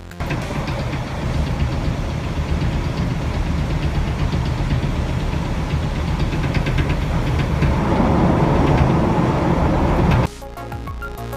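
Running noise of a moving train heard inside a passenger coach, a steady low rumble of wheels on rail that grows a little louder about eight seconds in. Music cuts in near the end.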